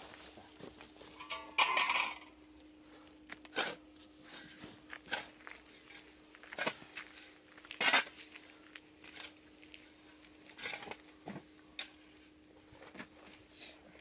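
Irregular knocks and clinks of things being handled, over a dozen short hits with the loudest about two seconds in and near the middle, over a faint steady hum.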